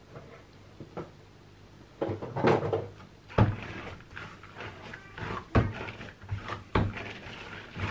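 Bread dough being kneaded by hand on a silicone mat: from about two seconds in, dull thuds as the dough is pushed and slapped down, with sticky squishing and rubbing between them.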